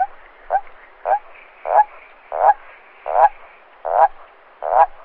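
A toad croaking in a regular series, about eight croaks roughly three-quarters of a second apart, each longer and louder than the last. A faint steady chorus runs beneath.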